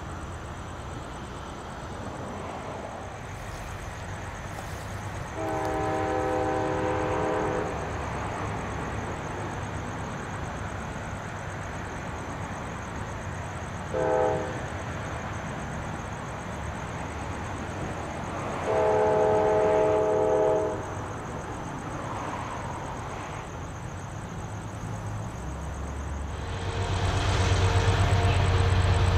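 Diesel locomotive horn sounding as a train approaches: a long blast about five seconds in, a short toot about fourteen seconds in, and another long blast around nineteen seconds. Near the end a louder horn chord sounds over a heavy low rumble of locomotive engines as a train draws close.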